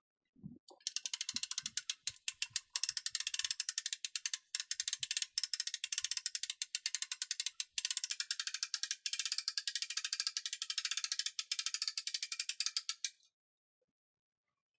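Hand-cranked winch on a homemade mini forklift ratcheting, its pawl clicking rapidly as the crank is turned to raise a concrete beam on the forks. The clicking starts just under a second in, breaks off briefly a couple of times, and stops about a second and a half before the end.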